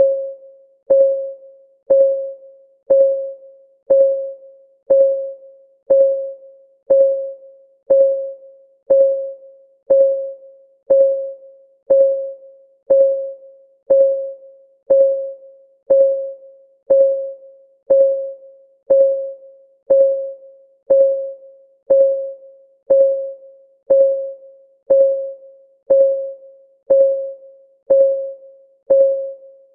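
Countdown timer ticking steadily once a second, each tick a short pitched electronic blip that fades quickly.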